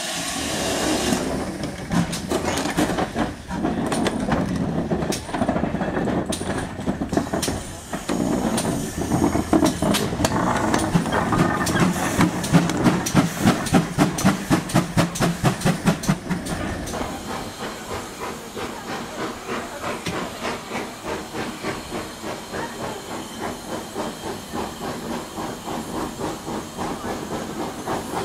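GWR 4200-class 2-8-0 tank engine 4270 working by with hissing steam and rhythmic exhaust chuffs, at about two to three beats a second and loudest around the middle. The chuffing then carries on fainter and more even.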